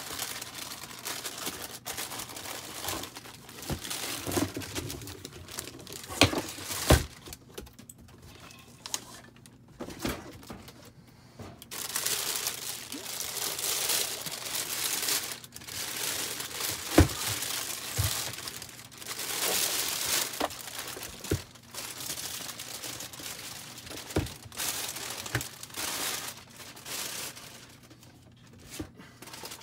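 Clear plastic bag crinkling and rustling as a boxed welder is unwrapped and handled, with a few sharp knocks scattered through.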